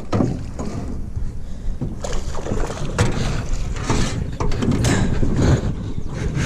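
Handling noise in a small aluminium boat: irregular knocks, scuffs and rubbing as a fish is brought in by hand after the reel has come off the rod, with an arm and sleeve brushing across the microphone.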